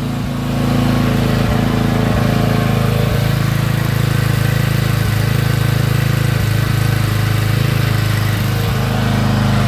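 Small engine of an HPG 700 engine-driven hydraulic pump running steadily, driving the pump during a pressure test; the engine has just been serviced because it died when throttled. Its pitch shifts slightly near the end.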